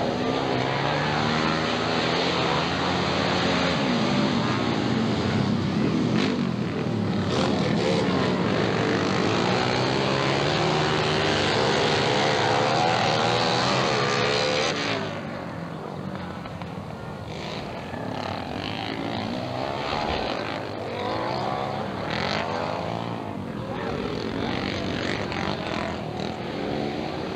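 Several racing motorcycles running hard on a dirt TT track, their engine pitch rising and falling as the bikes accelerate and back off. The engines are loud for the first half, then drop to a quieter, more distant sound about halfway through.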